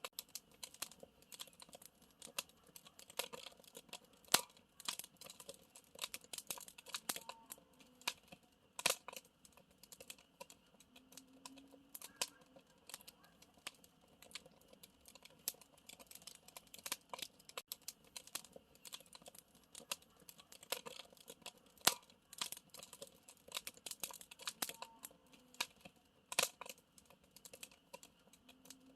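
Wood campfire crackling, with irregular sharp snaps and occasional louder pops.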